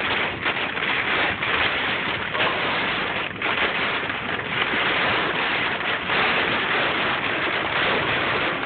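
Hail and heavy rain pelting a car's roof and windshield, heard from inside the cabin as a dense, steady noise made of many small hits.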